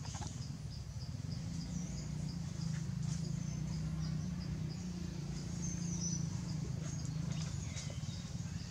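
Insects chirping in a steady, high-pitched pulse that repeats a few times a second, over a low steady hum, with a few short bird chirps.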